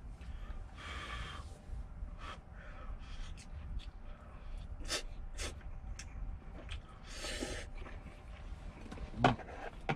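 Ramen noodles being slurped and chewed from a stainless steel pot, with two short slurps about a second in and about seven seconds in, and a few light clicks of chopsticks against the pot. A steady low hum runs underneath, and a louder knock comes near the end.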